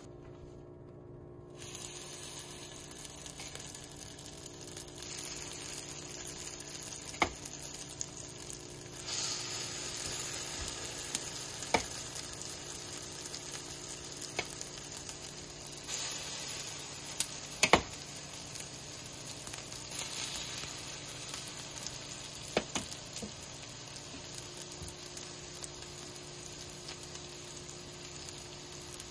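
Egg-battered potato fritters frying in hot oil: a steady sizzle that starts about two seconds in and grows louder about nine seconds in, with a few sharp clicks scattered through.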